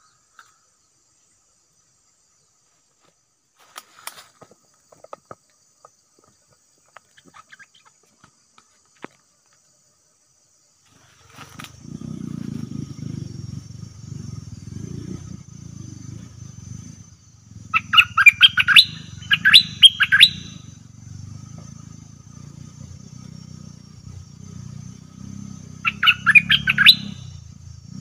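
Bulbul giving harsh, rapid chattering 'rik' calls, the aggressive call type: three quick bursts a little past the middle and one more near the end. Under them run a steady low rumble and a thin, high, steady insect-like whine.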